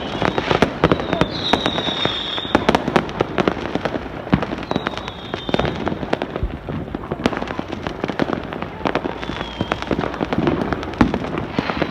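Fireworks going off: a dense, irregular run of sharp bangs and crackles, with a few short high whistling tones now and then.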